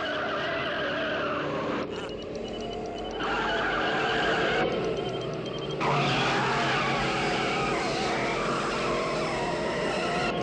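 Car accelerating hard with its engine revving and tyres squealing, heard in several spliced pieces that cut in and out abruptly.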